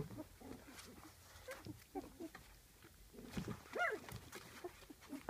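Young golden retriever puppies whining and squeaking in short cries that rise and fall in pitch, with one louder whine about three and a half seconds in.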